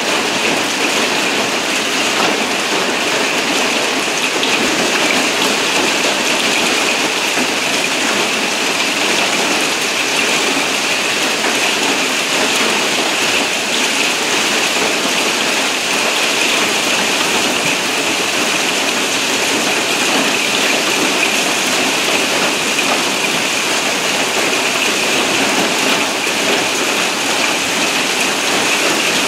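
Heavy hail with many ping-pong-ball-sized stones pelting down densely. It drums on the sheet-metal canopy roof overhead and clatters on the paving in a steady, deafening din that does not let up.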